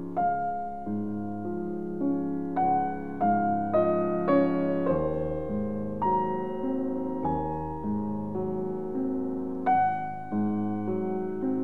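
Background music: slow, gentle solo piano, single notes and chords struck about every half second and left to fade.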